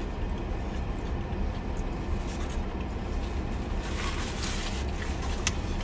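Steady low rumble inside a car cabin from the idling engine, with a short rustle of a paper napkin about four seconds in and a faint click near the end.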